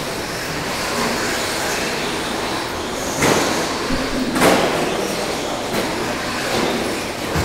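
Electric short course RC trucks with 13.5-turn brushless motors racing on an indoor dirt track: a steady whir of motors and tyres. Two sharp knocks come about three and four and a half seconds in.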